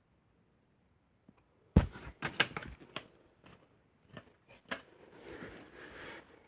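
Handling noise from a plastic box fan being worked on: a sharp knock, then a quick run of clicks and knocks, with a few single clicks and a soft rustle later.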